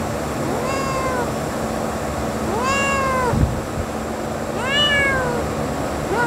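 Kitten meowing three times, about two seconds apart, each meow rising and then falling in pitch.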